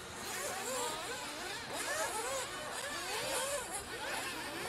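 Several nitro RC race buggies' small glow-fuel engines running at once, their overlapping whines rising and falling as the cars accelerate and brake around the track.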